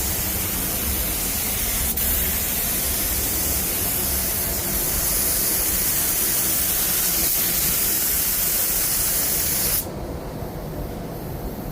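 Epoxy primer being sprayed onto bare car bodywork: a steady, bright hiss that cuts off near the end.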